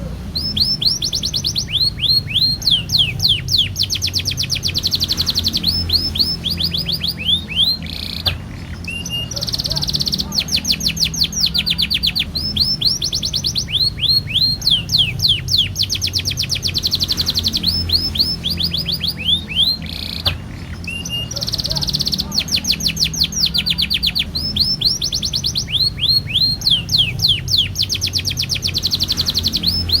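Domestic canary singing a long, continuous song of fast rolling trills and repeated downward-sweeping whistled notes, broken only by brief pauses. A low steady hum runs underneath.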